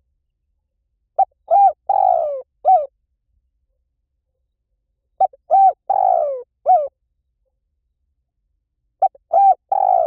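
Spotted dove cooing: three repeats of the same phrase, a quick run of about four low coos with the third longer and falling in pitch, roughly four seconds apart.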